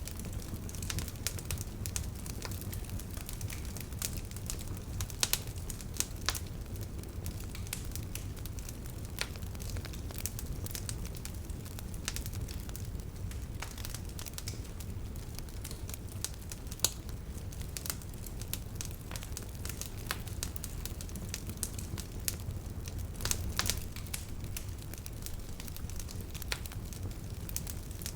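Campfire of burning wood crackling and popping, with irregular sharp snaps over a steady low rumble of the flames.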